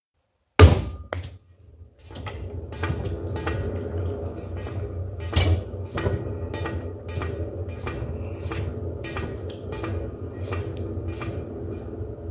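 A lump of wet clay slapped down onto a potter's wheel head with one loud thud. The spinning wheel then runs with a steady low hum and a soft knock about twice a second while the clay is centred and pulled up into a jug.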